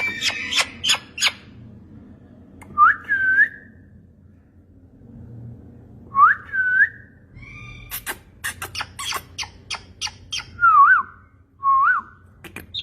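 Ringneck parrot calling: runs of short, sharp squawks at the start and again about eight seconds in, with clear whistled notes between them. The whistles rise and curl over, two of them well apart, then three wavering ones near the end.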